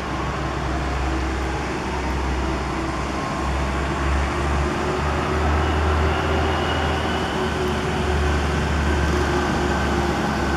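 Steady low rumble of motor-vehicle traffic noise, with a few faint steady tones over it from about halfway in.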